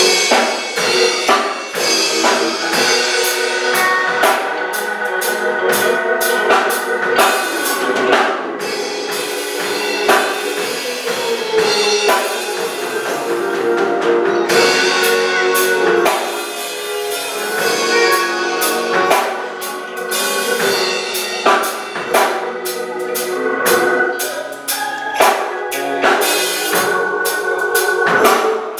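Live gospel music from a church choir and band, with a drum kit playing under sustained chords.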